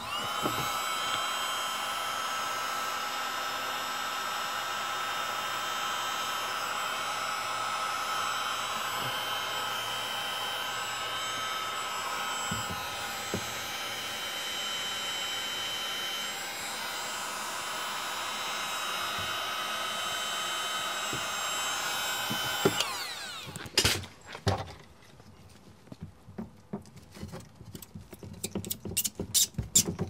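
A small electric motor running with a steady whine for over twenty seconds, then winding down and stopping. Scattered clicks and knocks of tool work follow near the end.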